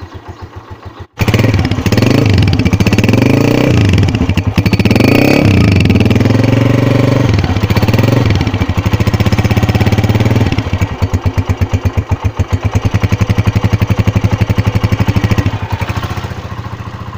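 Atlas Honda CG 125's single-cylinder four-stroke engine revved in several blips, rising and falling in pitch, then settling back to a steady idle with an even, clearly audible firing beat that fades near the end.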